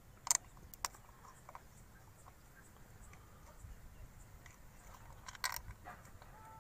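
A few sharp clicks and light metal taps from fitting an oil filter cover back onto a motorcycle engine's side case by hand: two clicks near the start and a short cluster of taps near the end, over a faint low background.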